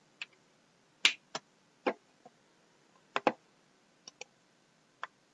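Computer mouse clicking: about ten short, sharp clicks spread unevenly, some in quick double-click pairs, the loudest about a second in.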